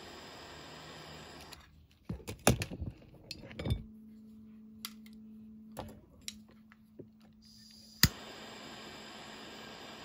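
Butane torch's blue jet flame hissing steadily, then shut off. A few knocks and clicks of parts being handled follow, then a single sharp click as the torch relights and the hiss starts again.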